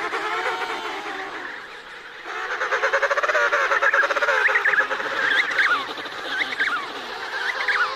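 Emperor penguins calling: an adult's loud, pulsing trumpet-like call begins about two seconds in, over a bending call at the start, with higher warbling calls through the second half. The adult is calling to find its chick among the colony.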